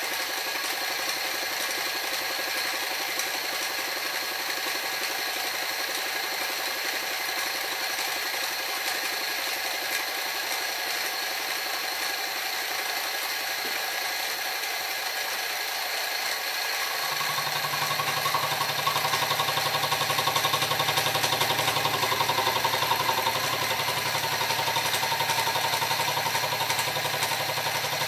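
Grizzly mini mill's spindle motor running steadily, driving a flycutter held in a 3D-printed PLA MT3 collet while facing aluminum. A bit over halfway through the sound gets louder, with an added low hum and a shifting whine, as the flycutter bites into the aluminum.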